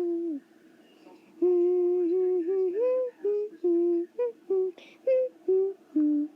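A person humming a wordless tune in short held notes that step up and down in pitch, with a pause of about a second near the start.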